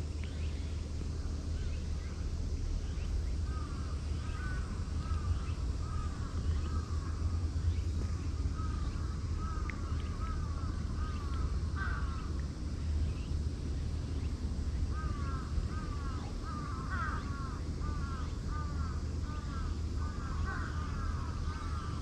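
Crows cawing in long runs of short calls, about two a second, with a break in the middle. A steady low rumble runs underneath.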